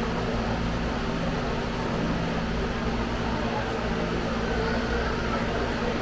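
A machine running with a steady low hum over an even wash of noise, unchanging throughout.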